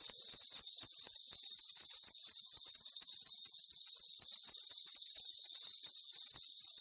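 Steady high-pitched hiss with many faint, irregular ticks underneath.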